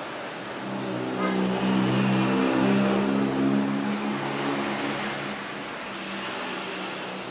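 A motor vehicle engine passing on the street, rising about a second in and fading after about five seconds, over a steady low hum.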